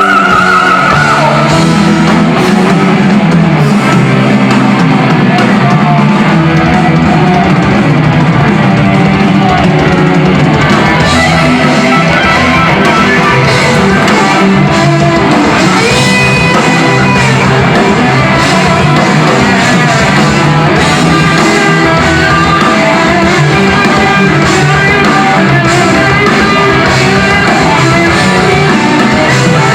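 Heavy metal band playing live and loud: electric guitars and drum kit, with a high note held briefly about sixteen seconds in.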